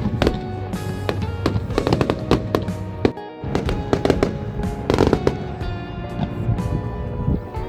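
Fireworks bursting and crackling in repeated sharp bangs, with background music playing over them throughout.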